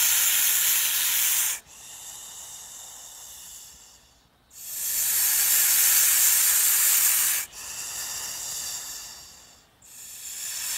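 Hissing in a repeating cycle: long loud hisses alternate with softer, quieter hisses, about five seconds per loud-soft pair.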